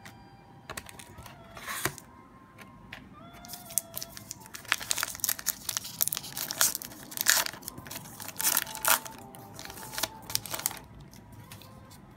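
A trading card pack's wrapper being torn open and crinkled by hand. A few light rustles come first, then a long stretch of crackling and crinkling that stops about a second before the end.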